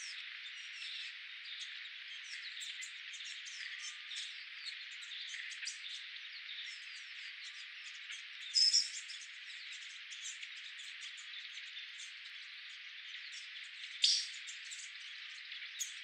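Forest ambience: a steady high hiss under many short, high chirps from wild birds and insects, with a louder call about halfway through and another near the end.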